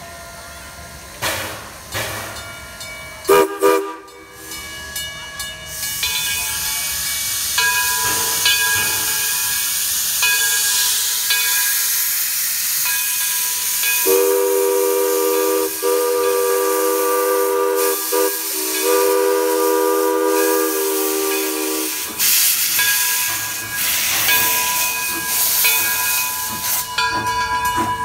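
Edison No. 1, a 4-4-0 steam locomotive, hissing loudly as it vents steam from its open cylinder cocks while pulling away. Its steam whistle gives a short blast about three seconds in and a long blast, briefly broken twice, from about fourteen to twenty-two seconds in.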